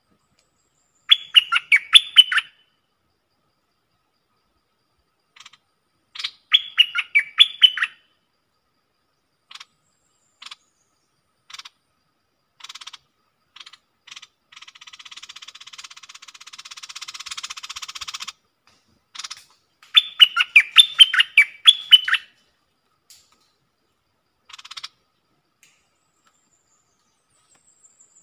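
Stripe-throated bulbul singing: three short phrases of quick falling notes, each about a second and a half, near the start, about six seconds in and about twenty seconds in, with scattered single call notes between them. A quieter dense buzzing swells in the middle and cuts off abruptly.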